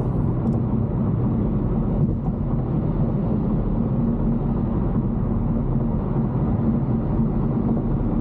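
Mercedes-Benz CLS 550 driving at a steady pace, heard from inside the cabin: an even low rumble of V8 engine and road noise with no revving or sudden sounds.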